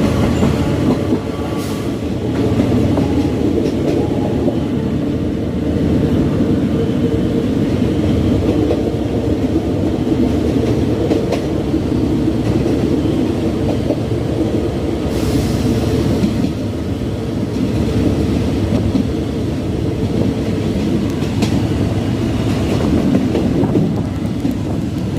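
Train wheels rolling on the rails: a steady low rumble with a few scattered clacks.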